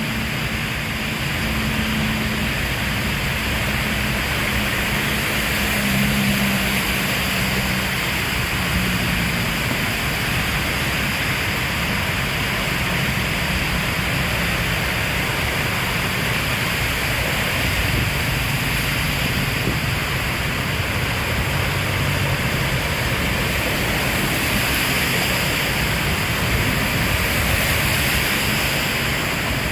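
Heavy rain falling steadily, an even hiss with no breaks. A low steady hum sits underneath during the first several seconds and again past the middle.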